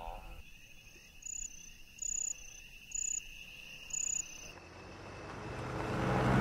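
Night insect sound: a steady, high cricket trill, with a short high two-note chirp, the second note slightly lower, repeated about once a second. Near the end a low sound swells up.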